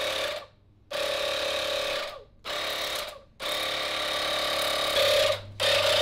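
Cordless Ozito air blower with a thin nozzle, its motor running with a steady whine in several bursts of one to two seconds with brief stops between, blowing metal filings out of a cut enclosure.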